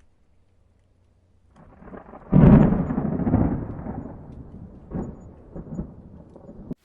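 Deep thunder-like rumble. It swells about a second and a half in, breaks sharply a little after two seconds, then dies away slowly with a few faint knocks near the end.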